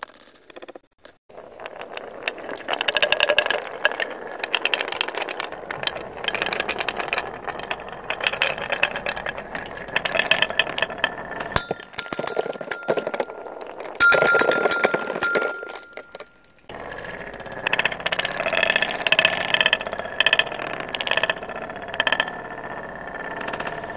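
Many glass marbles rolling and clattering down a Haba wooden marble run, knocking on the wooden wavy track. From a little before the middle to about two-thirds of the way in, metal sound bars ring with clear held tones as marbles strike them, loudest about halfway through.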